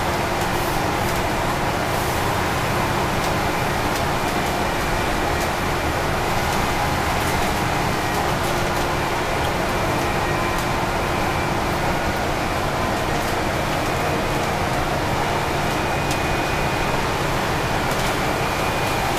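Steady cabin noise on the upper deck of an Alexander Dennis Enviro 500 double-decker bus cruising at highway speed: an even road and wind rush with a faint steady hum and occasional light clicks.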